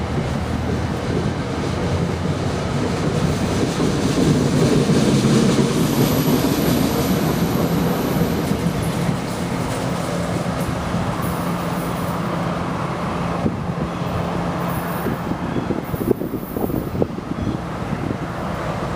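A train running past, a dense steady rumble of engine and wheels that swells to its loudest about five seconds in, with a steady low hum held through the middle.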